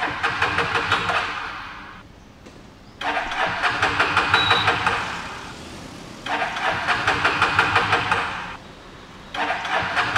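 A motorcycle's electric starter cranking the engine in repeated tries of about two and a half seconds each, with a quick even pulsing. The engine never catches and runs.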